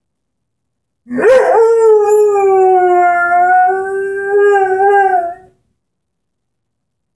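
Airedale Terrier howling ('singing'): one long howl starting about a second in, swooping up at first, then holding a steady, slightly wavering pitch for about four seconds before stopping.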